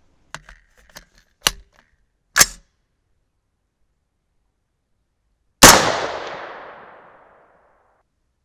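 A single .223 shot from an unsuppressed AR-15 with an 18-inch barrel, loud and sudden, its echo fading over about two seconds. Before it come a few light clicks and two sharper clacks as the rifle is handled.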